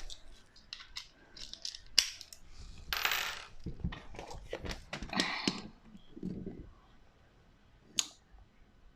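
Handling noises from work on a dishwasher: a sharp click about two seconds in, a short scrape a second later, more scraping and rustling, a dull knock, and another sharp click near the end.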